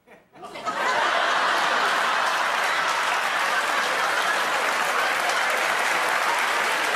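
Studio audience applauding, starting suddenly about half a second in, swelling within the first second and then holding steady and loud.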